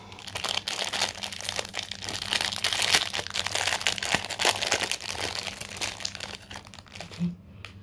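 Clear plastic packaging bag crinkling and crackling as hands handle it and work it open, the crackle dying down near the end.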